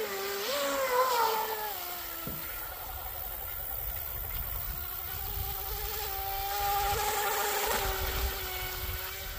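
Brushless electric motor of an RC hydroplane on a 4S lipo, running at speed as a high whine. The pitch climbs and dips over the first two seconds, then holds steady as the boat runs out across the water, with a low wind rumble underneath.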